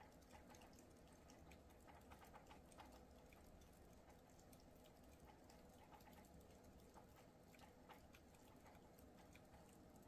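Near silence: faint ambience with a low hum and scattered soft ticks.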